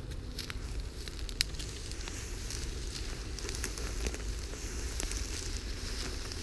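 Dry grass and brushwood crackling and rustling in many small snaps as a leashed wolf pushes through a thicket and tall dry grass, with one sharper snap about a second and a half in. A steady low rumble runs underneath.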